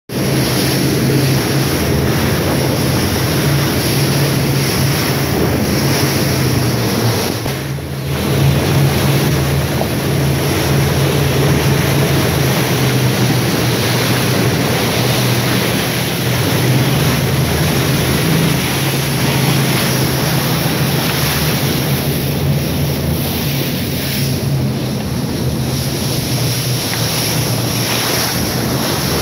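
Boat running at speed through chop: a loud, steady rush of wind on the microphone and water spray over the steady drone of its engines.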